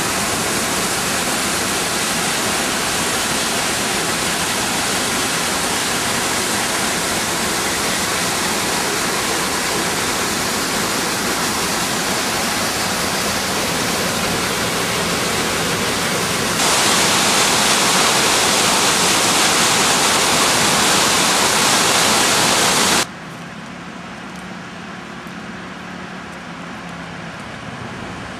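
Floodwater of a river in flood rushing in a steady, loud wash of noise. It gets louder about two-thirds of the way through, then cuts suddenly to a much quieter low hum near the end.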